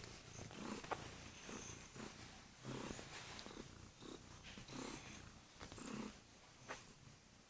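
Kuril Bobtail cat purring, in swells every second or so, with a couple of sharp clicks.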